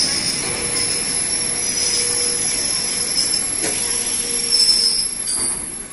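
Passenger coaches of an arriving train rolling slowly through the station with a high-pitched steel wheel squeal over the rumble of the running gear. The squeal dies away about five and a half seconds in.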